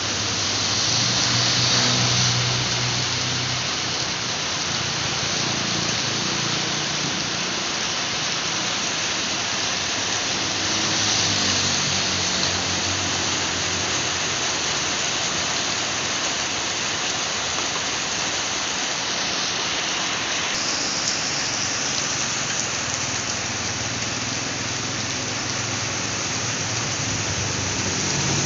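Steady heavy rain, an even hiss, with a low hum that swells up now and then.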